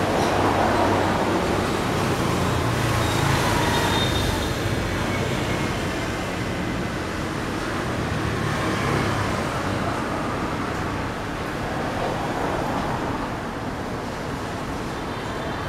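Street traffic on a wet road: a car passes with a low engine rumble in the first few seconds, then a steadier hiss of tyres and distant traffic.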